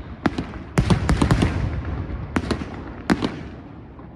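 Fireworks from a castillo (fireworks castle) going off: a string of sharp bangs and cracks, thickest about a second in, then a few single bangs over a fading crackle.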